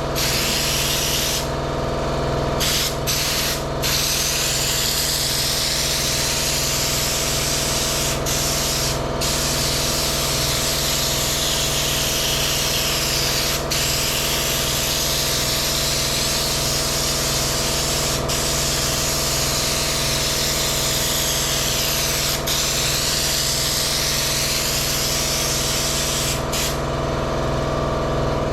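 Raptor bedliner being sprayed from an air-powered spray gun: a steady hiss, cut off briefly several times as the trigger is let go. Under it, an engine drones steadily throughout.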